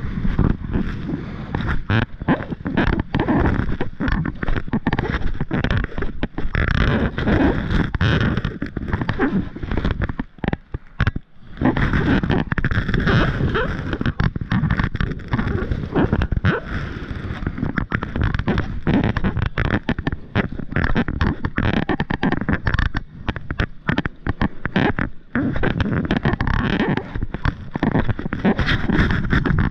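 Wind buffeting an action camera's microphone, mixed with water splashing around feet wading beside a kayak in a shallow, rocky river. It goes in irregular gusts, with a short lull about ten seconds in.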